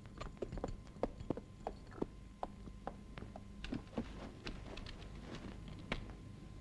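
Horse's hooves knocking on grassy ground, a quiet, uneven run of short knocks.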